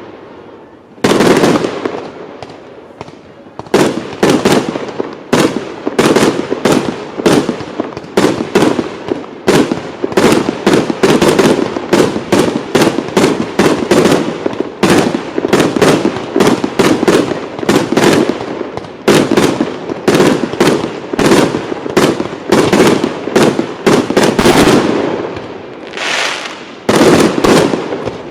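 Professional fireworks display: loud bangs of firework bursts, each with a short echoing tail. One bang comes about a second in, then a rapid run of several bangs a second, with a brief lull near the end.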